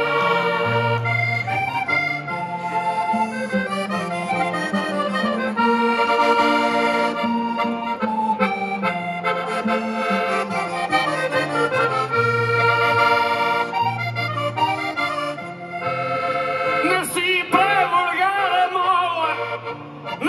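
Two accordions playing the instrumental interlude of a traditional Portuguese desgarrada tune between sung verses, with guitar accompaniment.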